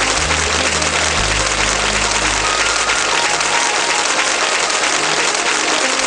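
Crowd applauding steadily, with a low hum underneath that shifts pitch a few times in the first couple of seconds.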